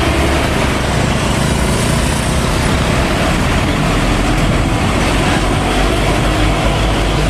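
Car-carrier truck, loaded with vehicles, driving past: steady engine rumble and road noise.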